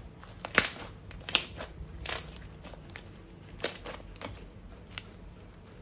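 Crunchy slime being handled and pressed, giving irregular crackling snaps, about six of them.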